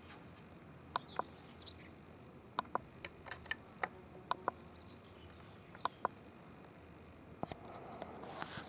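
Sharp clicks, mostly in pairs about a fifth of a second apart, recurring every second or two, with faint high chirps of small birds in the background.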